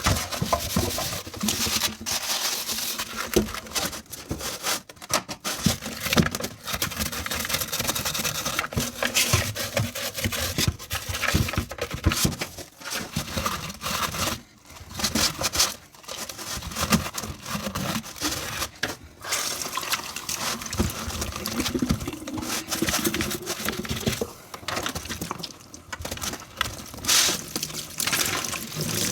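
Hand dishwashing: scrubbing, splashing water and dishes knocking together, coming in irregular bursts with brief pauses.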